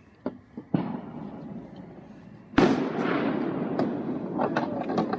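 Two sharp clicks, then a sudden loud burst of crinkling and rustling about two and a half seconds in as the food bag is grabbed and handled, continuing as an uneven crackle of small snaps.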